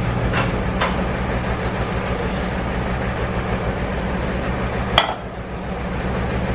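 Light clinks of kitchenware over a steady low hum, with one sharp clink about five seconds in.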